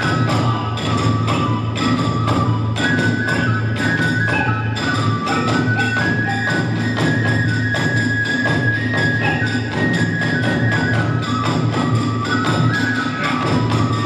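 Kagura hayashi music: a bamboo flute playing a melody of long held notes that step up and down, over steady, dense drumming and clashing small hand cymbals.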